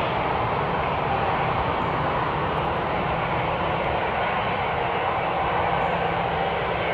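Airbus A380's four jet engines on landing: a steady, even engine noise with no change through the touchdown and rollout.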